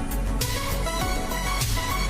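Background electronic music with a steady drum beat and a short-note synth melody.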